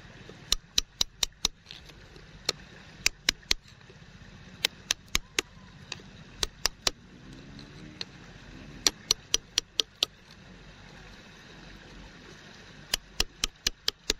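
A wooden stick tapping on a hard stone in dirt: sharp clicks in quick runs of three to six, about five a second, repeated several times over a faint low hum.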